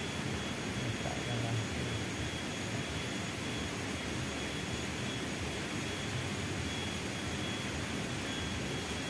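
Steady outdoor background noise, a continuous rush with thin, unchanging high-pitched tones over it.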